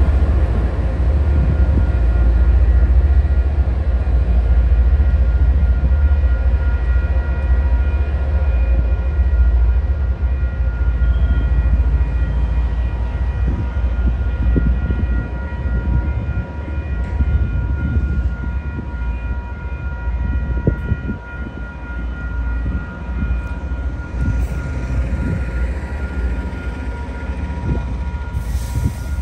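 MBTA HSP46 diesel-electric locomotive No. 2028 passing and pulling its commuter train away: a heavy low rumble from engine and wheels that slowly fades as the train moves off. Steady high tones continue throughout.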